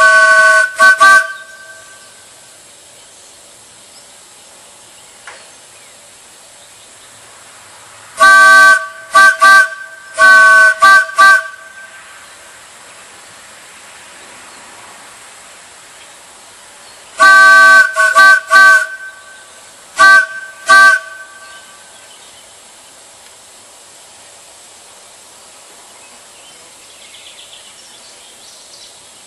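Large wooden chime train whistle blown in three groups of toots, near the start, about 8 seconds in and about 17 seconds in, each group mixing longer and short blasts. Each blast sounds a steady three-note chord.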